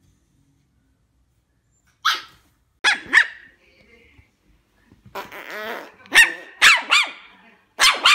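Small curly-coated puppy yapping in short, sharp, high-pitched barks, with a longer growling call in the middle. The barks follow about two seconds of near silence and come quicker near the end.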